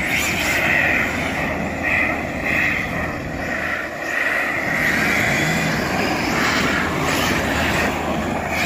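Electric RC drift cars' motors whining, the pitch repeatedly rising and falling as the throttle is worked, over a steady background din.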